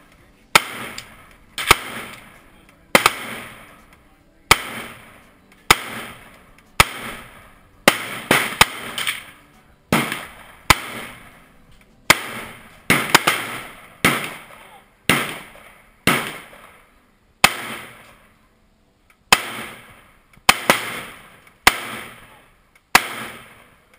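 IWI Tavor bullpup rifle firing semi-automatic shots, mostly about one a second with a few quick doubles and triples, each sharp crack followed by a decaying echo.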